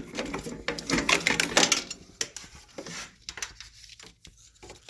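Light clicks and rattles of the riding mower's headlight sockets and wiring being handled and pushed through an opening in the hood. The clicks thin out after about two seconds.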